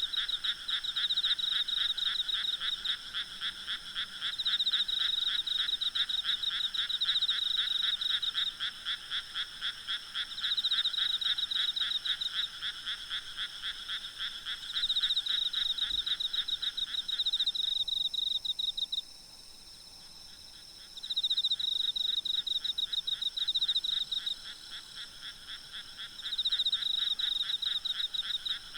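Night chorus of frogs croaking in fast pulsing trains, many calling at once, over a steady high trill of insects. The frog calls drop out for a couple of seconds about two-thirds of the way through, then start up again.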